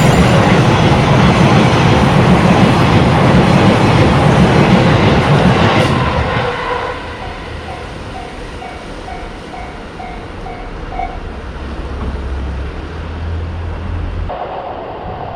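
Electric train passing close by with loud wheel-and-rail rolling noise, fading about six seconds in. Then a Japanese level-crossing warning bell rings about twice a second and stops near the eleventh second.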